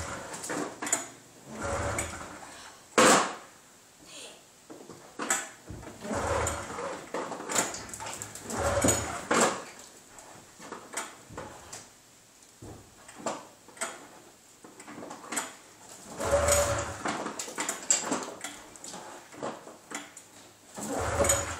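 Polaris Indy Classic 500 snowmobile's two-stroke twin being cranked over again and again in short bursts of about a second each, without catching. There is a sharp click about three seconds in.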